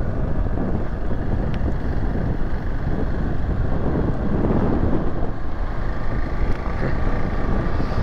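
Wind noise on the microphone over the steady running of a Hero XPulse 200's single-cylinder engine while riding, with muffled rubbing as a hand wipes raindrops off the camera lens.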